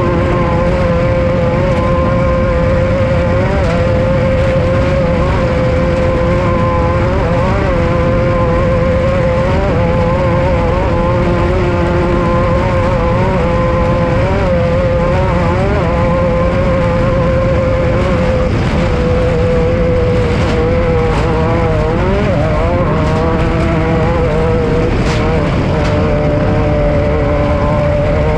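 Off-road race vehicle running hard, its engine holding high revs with a few brief dips and wavers in pitch, over a loud, steady low rumble.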